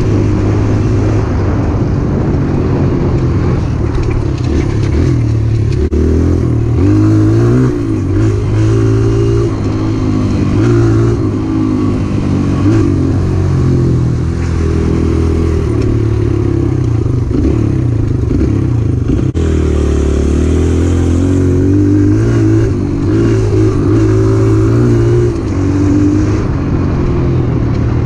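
Kawasaki KLX 140's four-stroke single-cylinder engine being ridden hard, its pitch rising and falling over and over as the rider shifts gears and rolls the throttle on and off.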